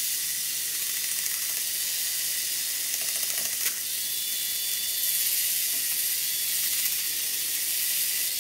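Hornby Dublo Co-Co locomotive's motor bogie running on test leads, wheels spinning with a steady whine and hiss while a screwdriver scrapes hardened old traction-tyre rubber out of the wheel grooves. A little louder from about five seconds in.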